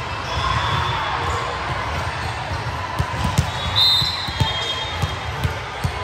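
Volleyball being struck and bouncing on a gym court: five sharp impacts in the second half, irregularly spaced, with a brief high-pitched squeak just before the middle, over crowd chatter.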